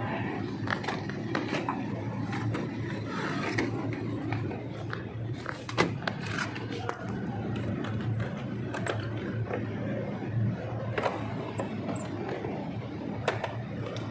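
Toyota Hiace van engine idling steadily, with scattered light clicks and taps and a sharper knock about six seconds in and again near the end.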